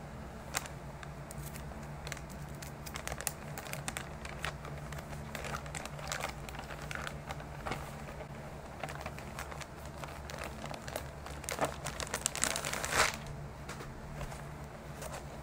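Plastic shopping bag crinkling and rustling as it is handled and pulled open, in irregular crackles, with a louder burst of crinkling about twelve to thirteen seconds in.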